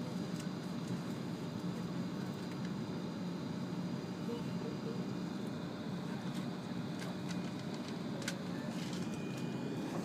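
Steady low hum inside the passenger cabin of an E7 series Shinkansen car standing at the platform, with a couple of faint clicks in the second half.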